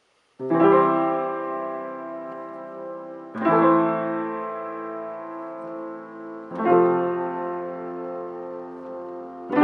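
Upright piano: three full chords, each struck with both hands and left to ring for about three seconds, with a fourth chord struck right at the end.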